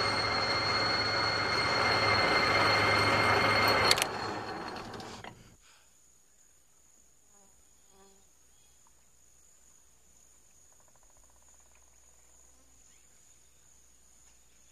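Sustained heavy gunfire dominated by the steady high whine of a spinning M134 minigun. It cuts off sharply about four seconds in, and the whine and noise die away over the next second and a half. Then faint jungle ambience follows, with insects holding a thin steady high note and a few faint ticks.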